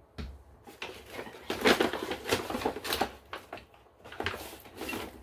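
Irregular tapping and clicking, with rustling, as objects are handled close to the microphone.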